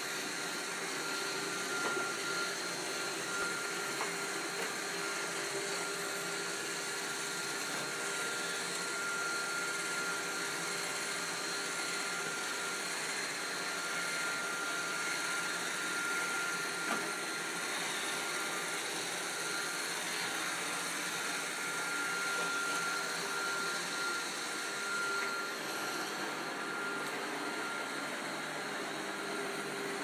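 iRobot Roomba 530 robot vacuum running as it cleans: a steady whirr from its vacuum motor and brushes, with a constant high-pitched tone over it and a few faint clicks along the way.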